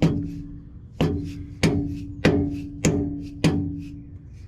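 A 2-pound dead blow hammer tapping a vehicle speed sensor down into a GMT400 Chevy C1500 transmission to seat its new O-ring. There are six sharp taps, one at the start and then five about 0.6 s apart after a pause, each with a short ring.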